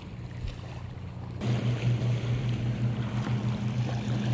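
Steady low engine drone that gets suddenly louder about a second and a half in and then holds steady. Small waves wash against the muddy bank.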